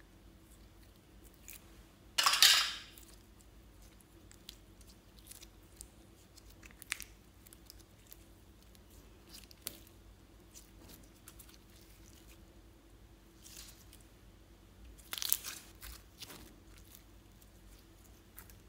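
Glossy slime being pulled and stretched by hand, giving sticky crackling sounds: two louder crackly bursts, one about two seconds in and one near the end, with small soft clicks in between.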